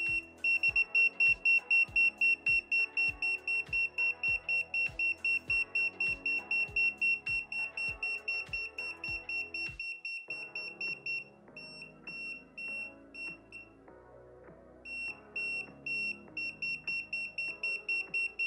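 A MUSTOOL MT100 multimeter's non-contact voltage detector beeping in rapid, evenly spaced high-pitched beeps as it senses a live AC wire behind the plaster; the beeping warns that the wire is close. Past the middle the beeps grow weaker, stop for about a second, then start again, with background music with a beat underneath.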